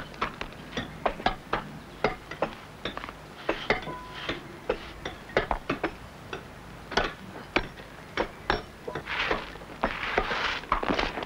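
Steel hand tools striking sandstone: quick, irregular, overlapping sharp clinks, some with a brief metallic ring, as quarrymen hew a grindstone. A grittier stretch of scraping and chipping comes near the end.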